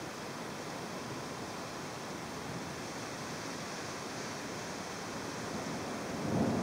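Steady rushing noise of rain and wind in a thunderstorm, with a low rumble of thunder building near the end.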